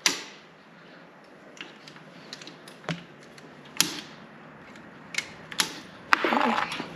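Sharp clinks and knocks of hand tools and parts being handled, with a loud one at the very start and several more spaced out after it, then a short creaking squeak near the end.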